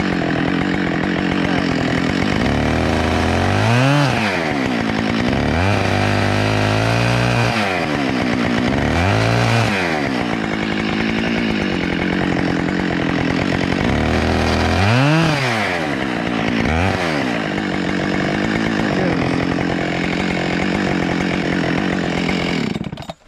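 Chainsaw running and cutting up a downed tree, its engine pitch rising and falling several times as it is revved and loaded in the cuts. It cuts off just before the end.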